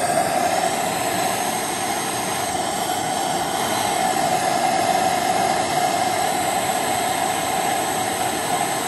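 Handheld gas blowtorch burning steadily with a constant hiss, heating a part on the engine shaft that has gone tight so that it will turn free.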